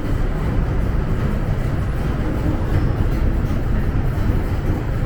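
MTR Island Line M-train, an electric multiple unit, running between stations in the tunnel. Heard from inside the car as a steady low rumble of wheels on rail and traction noise.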